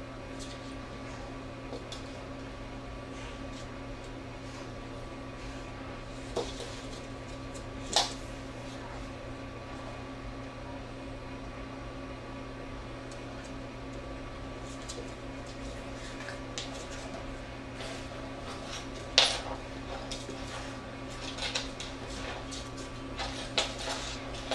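Scattered sharp clicks and taps from a beagle puppy and a golden retriever playing on a hardwood floor, more frequent in the second half, with a louder knock about 8 seconds in and the loudest about 19 seconds in. A steady electrical hum runs underneath.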